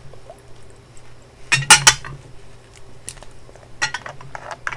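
Glass ink bottle of Diamine Fire Embers being handled in its ornate metal holder while its cap is unscrewed. Several sharp clicks and clinks of glass and metal, the loudest cluster about one and a half seconds in.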